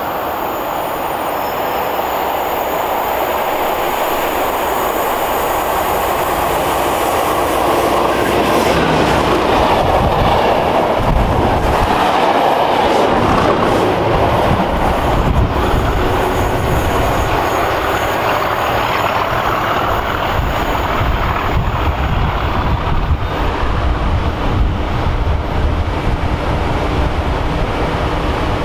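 British Rail Class 37 diesel locomotive, with its English Electric V12 engine, running past with wheel and rail noise. The sound builds over the first several seconds, is loudest around the middle, then goes on as a heavy low rumble.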